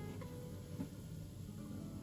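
Background music of a solo acoustic guitar playing sparse plucked notes. A short knock sounds a little under a second in.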